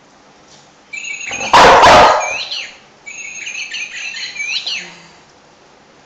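Plush bird dog toy's sound chip playing an electronic chirping bird call twice, about a second in and again at three seconds, with swooping whistle notes. A single loud dog bark cuts in over the first call.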